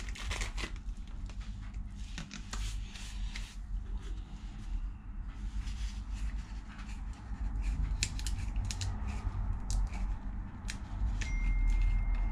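Hands working with small brake-caliper parts and seal-kit packaging: scattered light clicks, taps and rustles over a steady low hum. A thin steady tone comes in about a second before the end.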